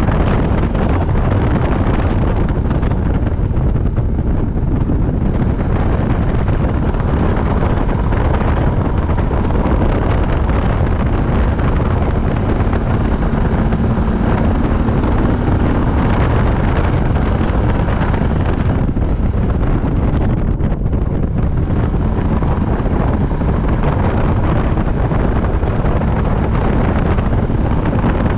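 Heavy wind buffeting the microphone of a quad bike on the move, over its steady engine and tyre noise.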